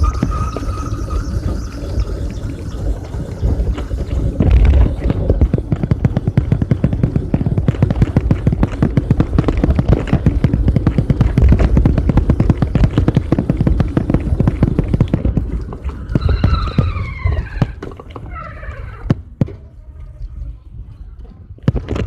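Bicycle riding over a rough surface, a loud steady rumble full of quick rattles and knocks. Near the end a few falling squeals sound as it gets quieter, followed by a few sharp clicks.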